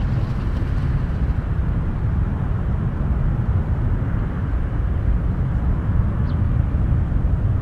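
BAe Avro RJ85 airliner's four Honeywell LF507 turbofans running at take-off power on the take-off roll: a steady, loud low rumble with a wide hiss above it.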